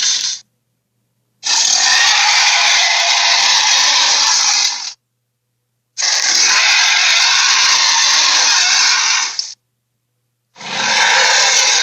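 Sharptooth's roar, a film tyrannosaur sound effect, played over and over: harsh, rasping roars of about three and a half seconds each, a second of silence between them.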